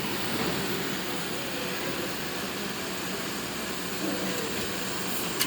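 GE 6500 BTU window air conditioner running just after switching on, its fan and compressor making a steady whooshing hum.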